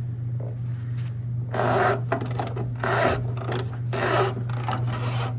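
Socket ratchet clicking in repeated rasping back-strokes, about four, as it backs out a rusty body mount bolt.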